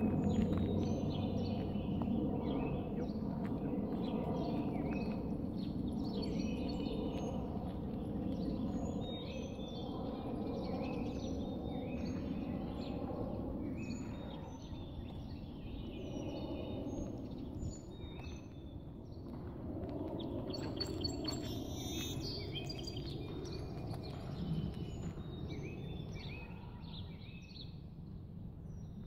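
Songbirds chirping and singing over a steady low outdoor background rumble.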